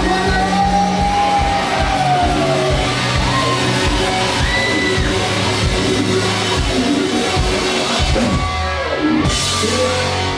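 Live rock band playing in a bar, with drums, electric bass and guitar under a male lead singer. The singer holds a long, arching note in the first few seconds.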